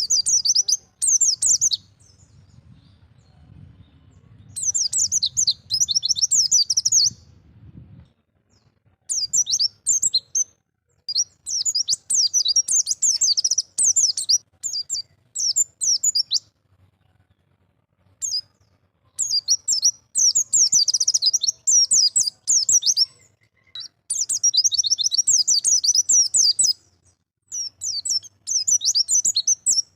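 White-eye (pleci) singing its 'ngalas' wild-type song: phrases of rapid, high twittering notes lasting one to three seconds each, separated by short pauses.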